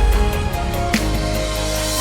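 Background music with held tones over a deep bass note, and a single drum hit about a second in.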